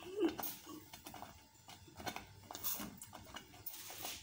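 Faint, scattered light clicks and soft brief noises from a steel saucepan of apricot purée on the stove, with the spoon resting in the pot.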